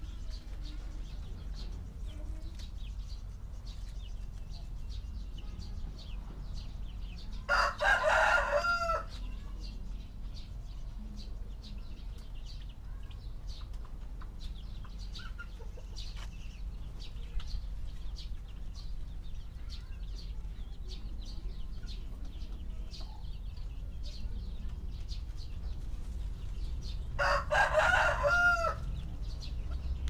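A rooster crowing twice, once about eight seconds in and again near the end, each crow lasting about a second and a half, over a steady low background rumble and faint clicks and rustles.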